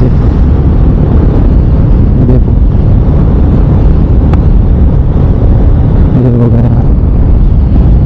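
Heavy wind rush buffeting the microphone of a camera on a moving KTM RC 200 motorcycle at road speed, with the bike's engine and road noise underneath as a steady low rumble.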